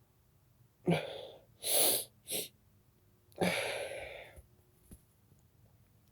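A person sneezing: two loud sneezes about two and a half seconds apart, with two shorter breathy sounds between them.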